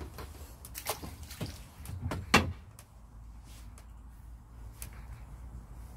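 A landing net with a caught fish being handled: a few sharp knocks and rustles, the loudest a little over two seconds in.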